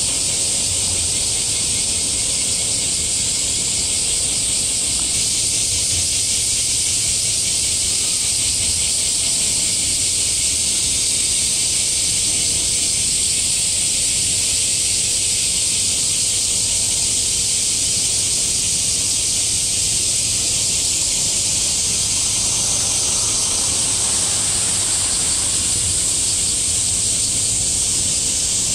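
A steady, loud, high-pitched hiss that does not change, with a faint low rumble underneath.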